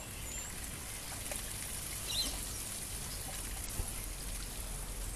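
A steady, even hiss, with a few short high bird chirps over it.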